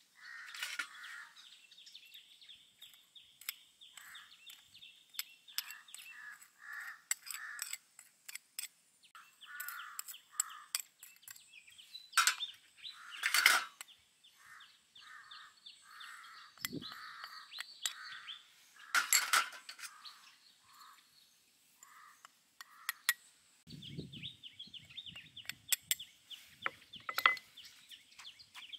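Birds and chickens calling over and over, short repeated calls with a thin high trill behind them. Scattered light clicks and a few louder clatters, about halfway and again a little later, as spices are tipped from small bowls into a stone mortar.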